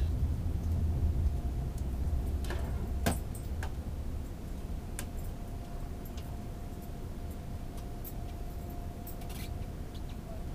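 Cabin noise of an AVE Series 103 electric high-speed train running at speed: a steady low rumble with a faint steady hum, easing a little over the first few seconds, with scattered light clicks and rattles.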